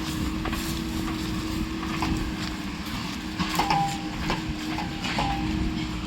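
Engine running steadily with a low hum, with irregular sharp knocks and clinks over it, a few of them ringing briefly.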